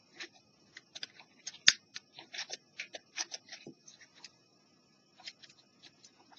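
Cotton swab wet with contact restorer scrubbing at blue-green corrosion on a portable cassette player's circuit board: irregular short scratchy strokes, with one sharper click about a second and a half in.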